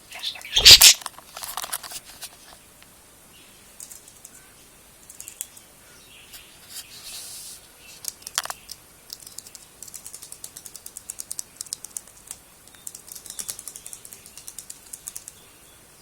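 Budgerigar chattering with soft high chirps and runs of rapid clicking ticks, thickest in the second half. A loud bump about a second in.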